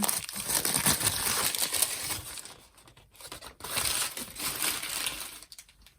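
Packaging wrapped around a crystal being crinkled and pulled off by hand, in two stretches of crackling that die away near the end.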